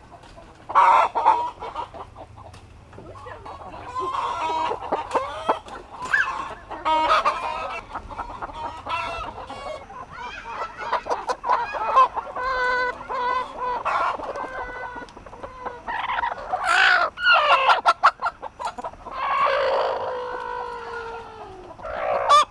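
A flock of brown laying hens clucking and calling, many voices overlapping, with a few longer drawn-out calls, one falling in pitch near the end. Scattered sharp clicks sound among the calls.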